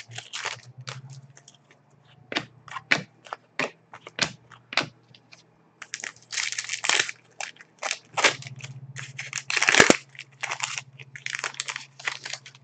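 A stack of 2008-09 Upper Deck SPx hockey trading cards being flipped and shuffled by hand: a quick run of sharp card snaps and clicks, with a couple of longer rustles about six and ten seconds in. A faint low hum sits underneath at times.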